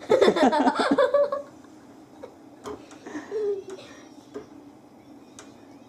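A person's voice, loud for about the first second and a half, then a quiet room with a few faint scattered clicks and one brief voiced sound a little after three seconds.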